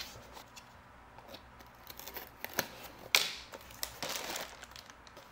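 A cardboard figure box opened by hand, with light scrapes and taps of cardboard. About three seconds in, a sharp rustle, then the figure's clear plastic bag crinkles as it is pulled out.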